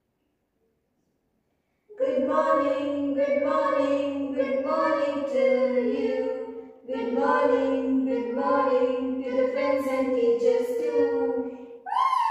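Unaccompanied singing of a song, starting about two seconds in, in two long phrases of held notes with a short break between them. Near the end a higher-pitched voice cuts in.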